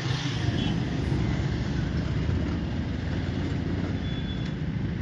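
Motor vehicle engine running with steady road noise, a continuous low hum.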